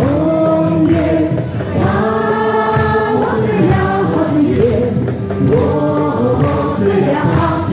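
A large group of men and women singing a Mandarin folk song together as a choir, with several long held notes.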